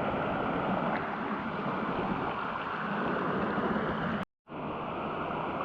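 Steady rush of flowing stream water over the falls' cascades, cutting out for a split second about four seconds in.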